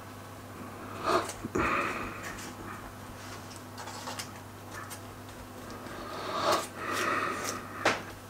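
Soft handling sounds as hands pinch and press the edges of puff pastry together on baking paper: a few short rustles and clicks, in two clusters about a second in and again near the end, over a steady low hum.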